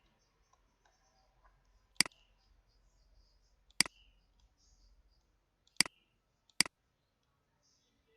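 Computer mouse clicking: four sharp clicks, irregularly spaced, the last two close together.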